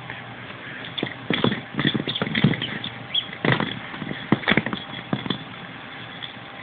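Irregular knocks and taps, a dozen or so in uneven clusters, the loudest about two and a half seconds in, dying away a little after the middle.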